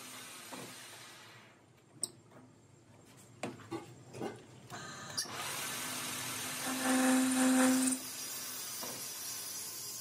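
Metal lathe running with its chuck spinning while the tool turns a steel workpiece. Early on the sound eases off and a few sharp clicks and knocks come through. The machine then runs steadily again, with a stronger steady tone for about a second as the tool cuts, before dropping back to a lower running sound.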